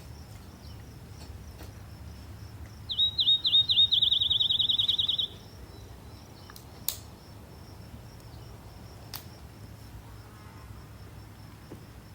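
A bird calling: a few quick, sharp notes running into a fast trill for about two seconds, the loudest sound here. Under it, a steady faint high insect drone, with two sharp clicks later on.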